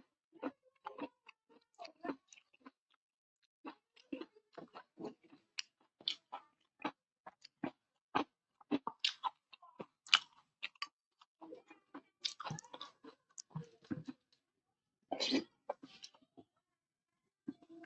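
Close-miked chewing of a meal of khichdi with fried fritters: irregular wet smacks and mouth clicks with occasional crunches, a few louder bursts of chewing along the way.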